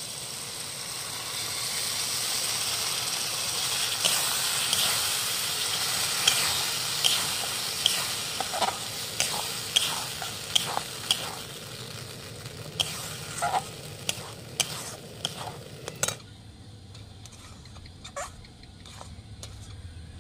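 Mashed potato and pointed gourd paste sizzling in hot mustard oil and masala in a metal wok. A metal spatula stirs it, scraping and clinking sharply against the pan many times. The sizzle stops abruptly near the end, leaving a few faint clicks.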